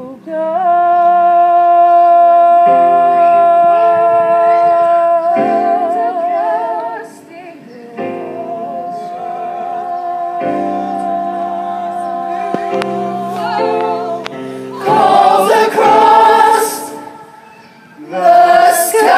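A mixed group of young voices singing long held notes in harmony, changing chord every few seconds, with live accompaniment. The singing dips briefly about a third of the way in and swells much louder with a bright, crashing wash near the end.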